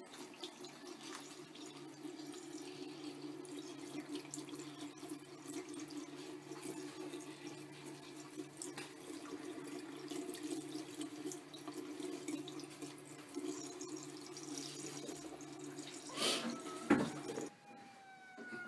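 A thin stream of water running from a sink faucet into the basin, trickling and dripping steadily. Near the end it stops, and a short rising cat's meow and a sharp louder knock are heard.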